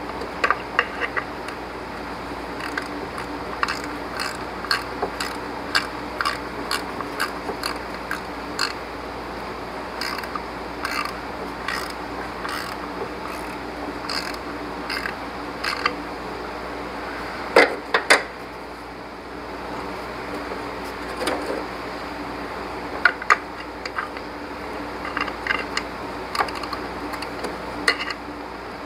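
Hand ratchet with a 10 mm socket clicking in short, uneven runs as the bolts of the serpentine belt guard are worked loose. A couple of louder metal clanks come about two-thirds of the way through.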